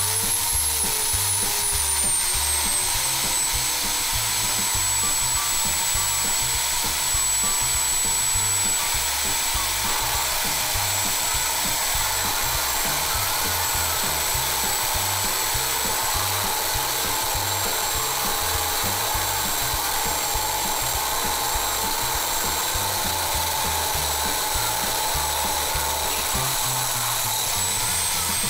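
Electric drill in a drill stand starting up and running steadily while its bit grinds a hole through the side of a tape-wrapped glass bottle. A high motor whine climbs sharply at the start, then holds steady.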